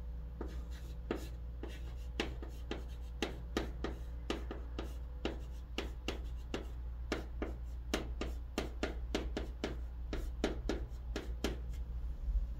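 A stick of chalk writing on a chalkboard: quick taps and short scratching strokes, several a second, as handwritten Korean characters are formed. A low steady hum runs underneath.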